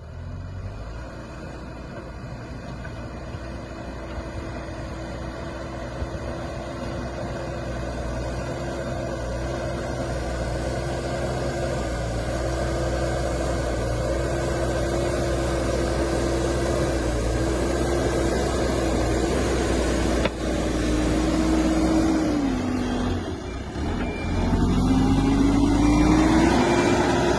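Hidromek 102B backhoe loader's diesel engine working under load, steady and growing louder. There is a sharp knock about twenty seconds in. Near the end the revs drop briefly and then climb back up.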